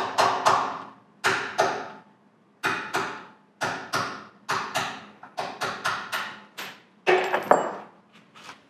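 Hammer striking a brass punch set against the cast-iron jaw of a Wilton bench vise, driving the stuck jaw loose: a series of sharp metallic taps with short ringing, mostly in pairs at about one pair a second, stopping about seven and a half seconds in.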